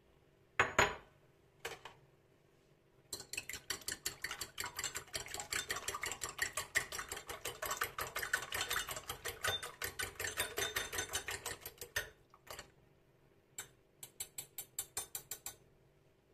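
Eggs being beaten with a metal fork in a ceramic bowl: fast, even clicking strokes of the fork against the bowl. A long run of strokes is followed by a short pause and a second, shorter run near the end. A couple of sharp knocks come in the first two seconds.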